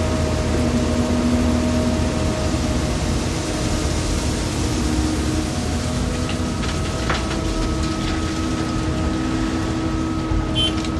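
Diesel engine of a Volvo excavator running steadily under load, with a single knock about seven seconds in and a few sharp clicks near the end.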